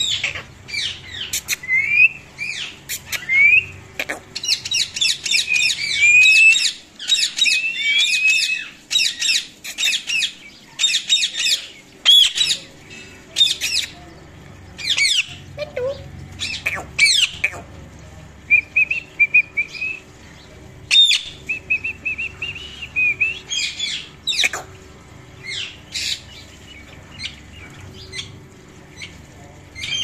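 Indian ringneck parakeet and cockatiel calling: quick runs of chirps and whistles with sharp squawks. They are busiest in the first half, then come as shorter chirp runs and single calls.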